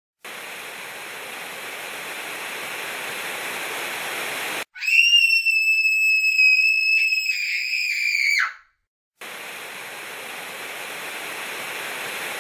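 Television static hiss, slowly growing louder, cut off about four and a half seconds in by a loud, shrill scream held for nearly four seconds; after a brief silence the static hiss returns.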